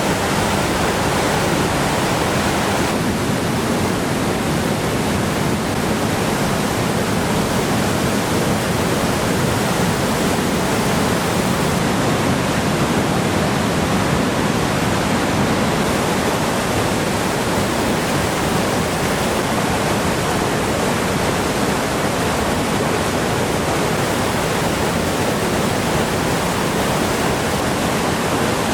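Mountain creek in flood after heavy rain and snowmelt, its fast water churning and rushing in a steady loud roar.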